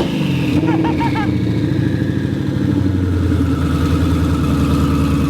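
Twin-turbo 5.2-litre V8 of a Shelby GT500 running on open downpipes with no exhaust fitted, its revs falling back to idle in the first half second after a blip of the throttle, then idling steadily. A faint turbo whine winds slowly down in pitch.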